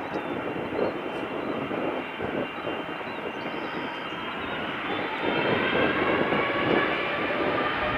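Boeing 787-8 jet engines running with a steady whine over a broad rush of engine noise, growing louder about five seconds in.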